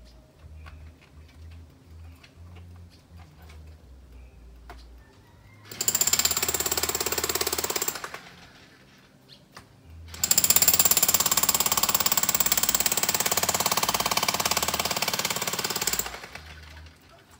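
Hand-held jackhammer hammering in two bursts: about two seconds starting near six seconds in, then about six seconds starting near ten seconds in. Between bursts only faint knocks are heard.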